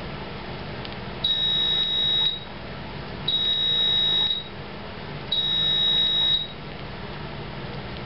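Three steady, high-pitched electronic beeps, each about a second long, one every two seconds.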